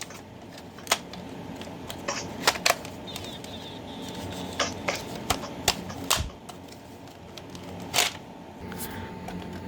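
Irregular sharp plastic clicks and taps, about ten, from hands handling a First Alert FACO carbon monoxide detector and pressing its test button. The alarm does not sound: the unit is failing to test.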